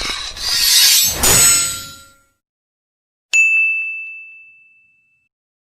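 A loud, noisy sound effect dies away over the first two seconds. After a short silence, a single metallic ding rings out about three seconds in and fades over about two seconds, with a few light ticks just after the strike.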